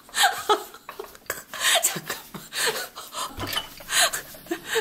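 Metal cutlery and ceramic plates clinking and knocking on a tray as it is cleared: a quick, uneven run of sharp clinks throughout.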